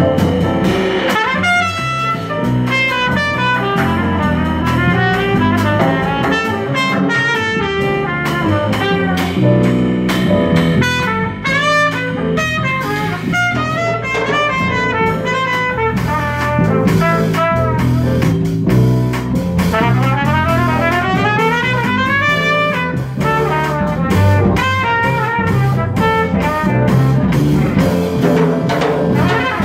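Live jazz: a trumpet plays fast runs that climb and fall, over plucked upright double bass and a drum kit with steady cymbal work.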